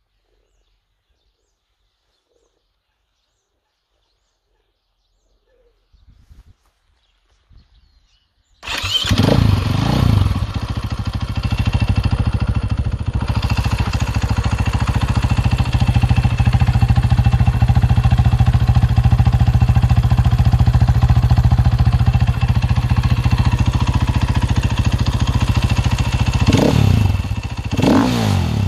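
KTM 450 EXC-F single-cylinder four-stroke dirt bike engine through its stock KTM silencer. After a few seconds of silence it starts about nine seconds in with a quick rev, idles steadily, and is blipped twice near the end.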